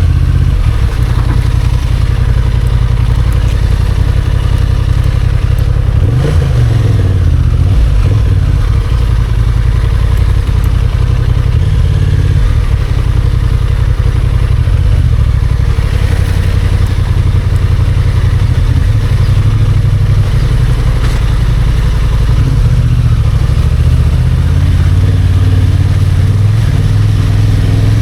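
Motorcycle engine running under way, its pitch rising and falling with the throttle about six seconds in and again near the end.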